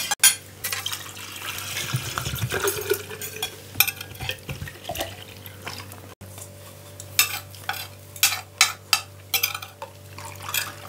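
Spoons and forks clinking against china plates and bowls during a meal, with a drink being poured from a plastic jug into a paper cup. The clinks come as a run of short, sharp ticks in the second half.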